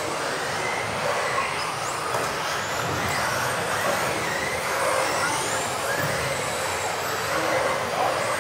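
Several electric RC off-road buggies racing on a carpet track. Their motors whine in a steady wash of noise, rising and falling in pitch as the cars speed up and slow down, with echo from the hall.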